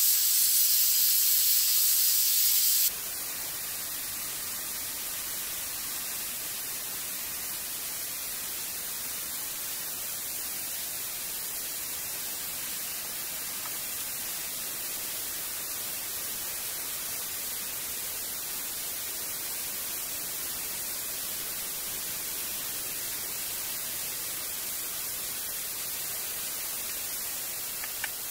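Steady, even hiss like static or white noise, with nothing else in it. A louder, higher-pitched hiss before it cuts off abruptly about three seconds in.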